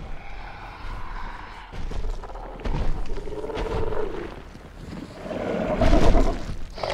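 Skullcrawler creature sound effect from a monster film: the giant reptilian monster growls low as it stalks, with a few heavy thuds, and its loudest growl comes about six seconds in.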